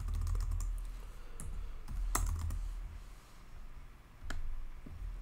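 Computer keyboard: a handful of separate keystrokes, irregularly spaced, over a low hum.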